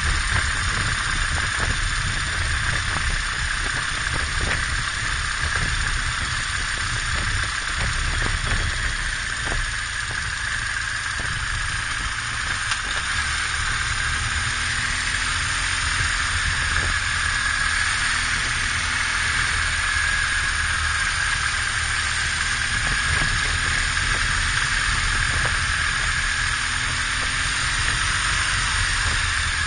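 BMW R1200GS boxer-twin engine running steadily while riding, with a constant low rumble under steady wind and road hiss.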